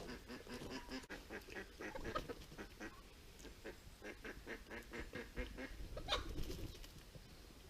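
Waterfowl honking in a rapid series of short calls, with one rising call about six seconds in.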